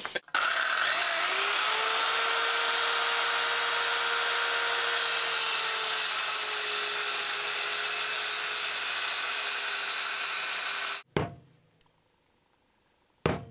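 Handheld circular saw running at a steady whine while making a row of shallow kerf cuts across the end of a pine newel post to remove a lip. The saw cuts off suddenly about eleven seconds in.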